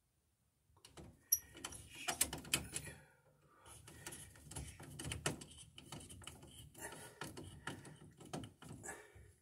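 Hands working copper wire and a tool at a metal breaker panel while terminating a conductor on a breaker: a busy run of small clicks, taps and scrapes, with a short pause about three seconds in.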